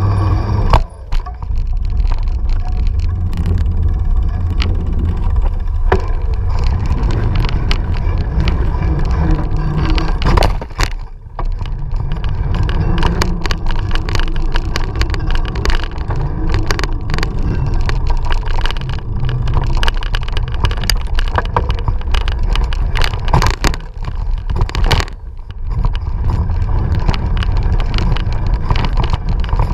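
Mountain bike rolling fast over dirt singletrack: wind buffeting on the microphone with constant rattling and frequent sharp knocks as the bike bounces over bumps.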